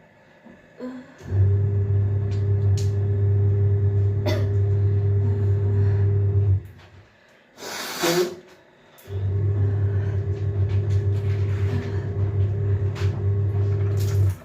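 A steady low electric hum, like a small motor, runs for about five seconds, stops, and runs again for about five seconds. In the gap between there is a short, harsh burst of noise.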